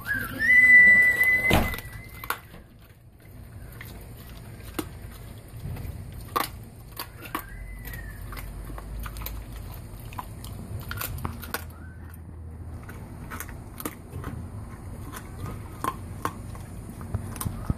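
Yellow Labrador retriever chewing a raw chicken leg, with irregular sharp clicks and cracks of teeth on bone. A brief high squeal near the start is the loudest sound.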